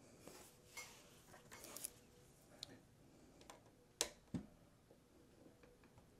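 Mostly near silence, with faint ticks of hands and a tool handling a circuit board, then two sharp clicks close together about four seconds in as the tool's tip is set against the board.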